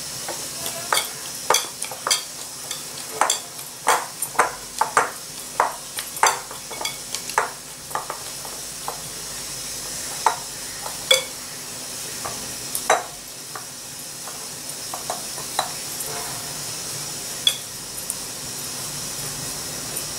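Hands kneading soft, olive-oiled wheat dough in a glass bowl: short slaps and squelches of the dough, with knocks of dough and hand against the glass. They come about two a second for the first eight seconds or so, then more sparsely.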